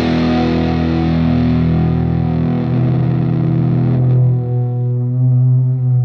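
Distorted electric guitar chords held and left ringing through effects at the close of a rock song, with no drums; the upper ring thins out about two-thirds of the way in.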